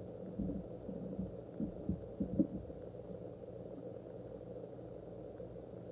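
Bare footsteps on a wooden floor: several soft low thumps over the first two and a half seconds, then only a steady low room hum.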